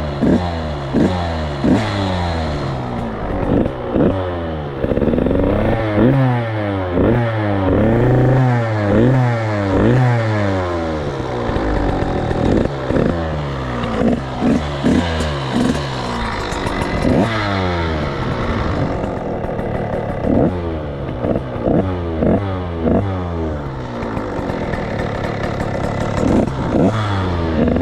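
Two-stroke engine with an FMF Shorty exhaust silencer, revved in quick repeated throttle blips, each climbing and dropping back to idle, with a few longer pulls. Loud, way louder than a stock pipe.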